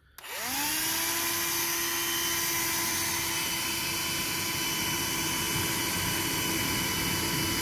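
Handheld vacuum cleaner switched on and used as a blower on a wood fire: the motor whines up in pitch within the first second, then runs steadily with a high whine over rushing air.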